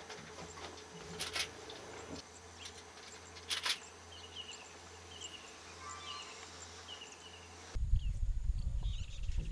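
Short, high, falling chirps repeated about every second, with a few sharp knocks in the first half. A sudden low rumble comes in for the last two seconds.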